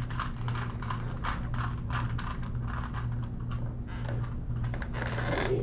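A finger tapping the passcode keypad on a smartphone touchscreen: a run of quick, irregular clicks over a steady low hum.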